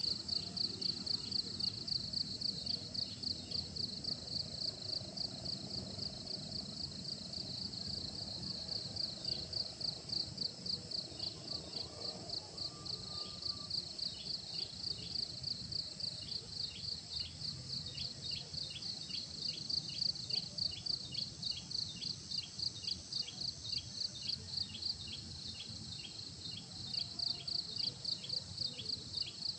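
Insects chirping in a steady, high-pitched pulsing rhythm of about two pulses a second, over a faint low rumble of outdoor background noise.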